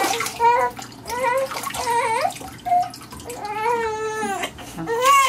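Newborn baby crying in a string of short, high-pitched wails, about six in all, the longest about three and a half seconds in. Water splashes in the basin as her head is rinsed.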